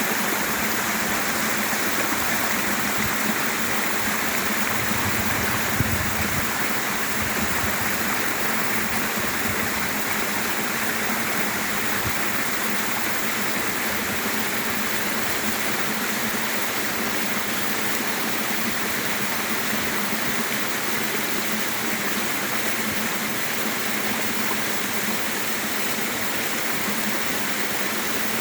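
Waterfall: a steady, unbroken rush of falling water, with one brief knock about six seconds in.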